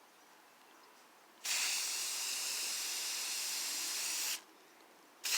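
Aerosol spray can spraying: one steady hiss of about three seconds that stops sharply, then a second burst starting near the end.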